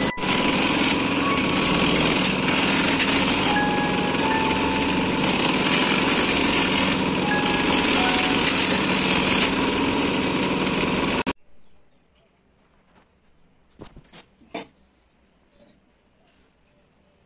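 Steel axe blade being ground on a motor-driven grinding wheel: a steady harsh hiss of metal against the wheel, with thin squealing tones that shift in pitch. The sound cuts off suddenly about eleven seconds in, and near silence follows with a couple of faint clicks.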